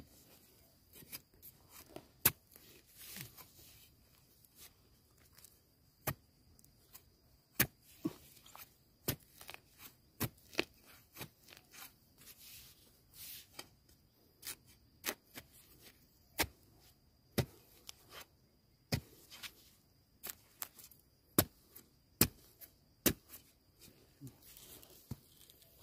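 Irregular sharp snaps and crackles, about one or two a second with some much louder than the rest, from dry bamboo litter and stems being stepped on and broken off in a bamboo grove. A faint steady high tone sits behind them.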